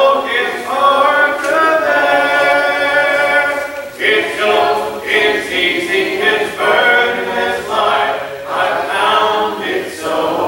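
Congregation singing a hymn a cappella, without instruments, with one long held note from about two to four seconds in.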